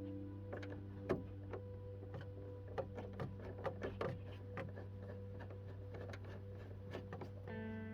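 Irregular light clicks and taps of plastic trim pieces being handled and pressed back into place, over quiet background music with sustained chords.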